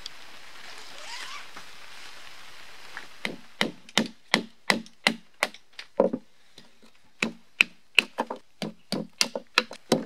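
Steady rain for the first few seconds. Then, from about three seconds in, a run of sharp wooden knocks, about three a second: a wooden baton striking the spine of a folding knife driven down into a small log to split kindling.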